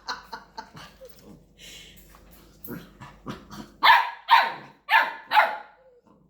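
A Labrador barking four times in quick succession in the second half, after quieter short sounds.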